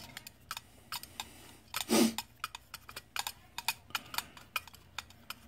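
Screwdriver backing a small screw out of a projector lamp's plastic and metal bracket: a run of irregular small clicks and ticks, with one louder knock about two seconds in.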